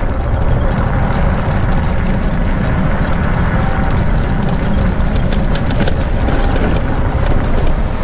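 Steady road and wind noise from a moving vehicle: a continuous low rumble, with a few faint rattling clicks in the middle.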